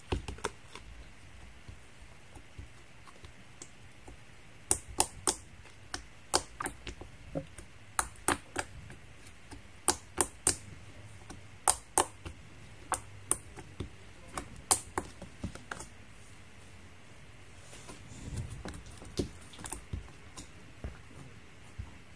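Fingers poking and pressing a soft slime, making sharp, irregular clicks and pops as trapped air bursts, thickest through the middle stretch and giving way to softer squishing near the end.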